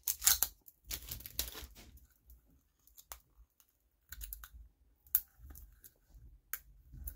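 Desk handling noises: light taps, clicks and short paper-and-plastic rustles as a roll of washi tape is picked at and fiddled with, in irregular bursts with a few sharp ticks.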